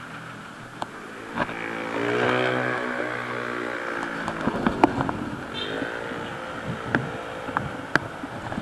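Motor vehicles passing in city traffic. An engine hum bends up and then down in pitch about two seconds in, and another falls away about five seconds in, with scattered sharp clicks and rattles throughout.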